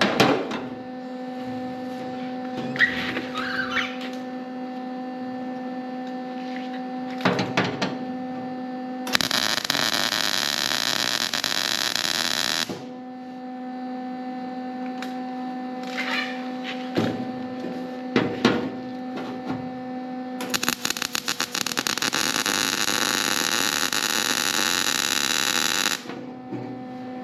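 Welding arc crackling in two runs, one about three and a half seconds long about nine seconds in, and a longer one of about five and a half seconds past the twenty-second mark, welding a jack-support tube onto a VW Beetle frame. Between them a steady electrical hum and a few short knocks from handling the work.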